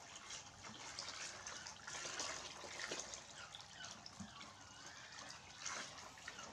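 Water pouring steadily from a hose into a plastic basin of water, splashing and trickling.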